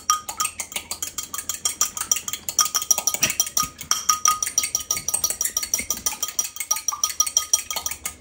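A metal utensil beating an egg with a little water in a small ceramic bowl to make egg wash: quick, even clinking, several strikes a second, the bowl ringing on each strike.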